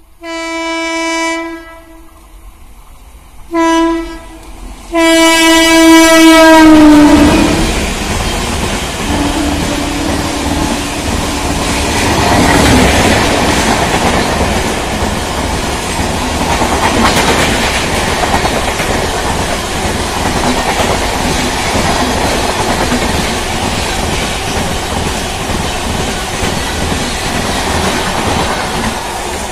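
Indian Railways WAP7 electric locomotive sounding its horn three times, a long blast, a short one and a long one whose pitch drops as the locomotive passes. Then the express's coaches run past at speed with a steady loud rumble and the clatter of wheels over rail joints.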